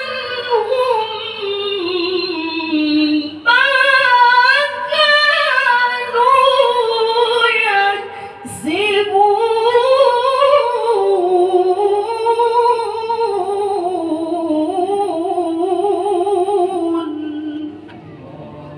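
Qur'anic recitation: one reciter's voice draws out long, ornamented melodic phrases in the tilawah style, the pitch wavering and sliding. There is a short break about eight seconds in, then a new phrase rises and is held.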